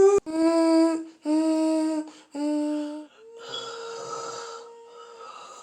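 A person's voice singing the film's score by mouth: three short held notes, each lower than the one before, then a longer, breathy held note on a higher pitch.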